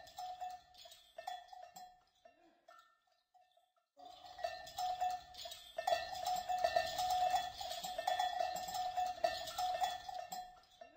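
Livestock bells (cencerros) clanking: a few scattered clanks at first, then after a short gap a continuous jangle of many bells from about four seconds in, stopping just before the end.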